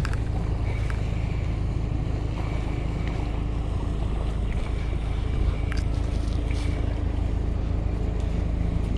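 Steady wind rumble on the microphone and moving water, with the even drone of a passing motorboat's outboard engine underneath.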